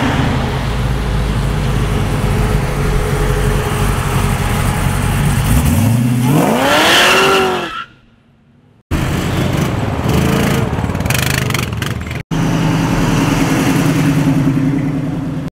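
Car engines running as cars drive past. About six seconds in, one car revs hard with its engine pitch climbing steeply, then the sound cuts off abruptly. After about a second the sound of more cars rolling by with their engines running returns.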